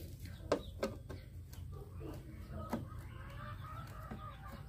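Hens clucking faintly, with a few sharp clicks from a screwdriver working a side screw on the air conditioner's casing; the loudest click comes about half a second in.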